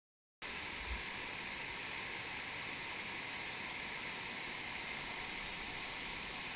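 Steady rushing of a shallow rainforest stream flowing over rocks, starting suddenly just under half a second in.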